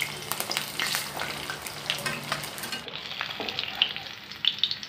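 Spice-coated catla fish pieces sizzling and crackling in hot oil in a kadhai, with a steel spatula scraping the pan as the pieces are turned over.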